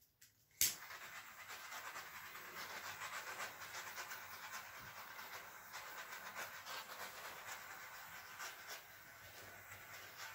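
A small handheld torch clicks alight under a second in, then hisses steadily as its flame is passed over wet acrylic pouring paint.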